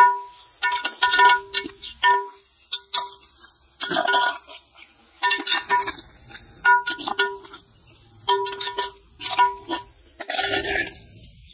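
Perforated metal ladle stirring and scraping in a large aluminium pot of fried onions and spice powder. Irregular knocks, about one or two a second, each leave the pot ringing briefly at the same clear pitches.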